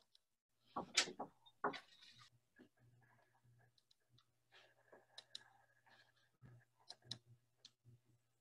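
Faint knocks and clicks over a low steady hum; the loudest knocks come about a second in, with a few sharp clicks later on.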